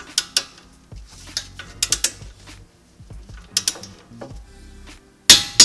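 Torque wrench ratchet clicking in short bursts as a brake caliper bracket bolt is tightened toward 88 ft-lb. The loudest pair of sharp clicks comes near the end.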